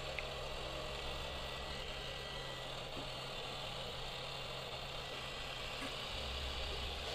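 Cooling fans of a Big Dipper 7R Sharpy moving-head stage light running steadily with a low hum, the fixture powered up for a test after a motherboard repair. The low hum grows stronger about six seconds in.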